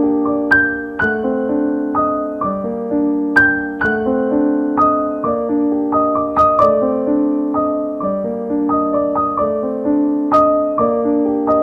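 Background music: a solo piano passage of struck notes, several a second, each ringing and fading.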